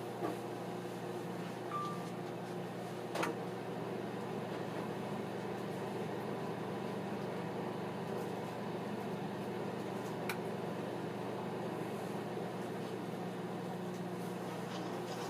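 Microwave oven running with a steady, even hum. A few sharp clicks break in, along with a brief high tone about two seconds in.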